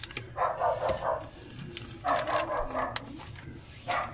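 A dog barking repeatedly, in runs about a second and a half apart.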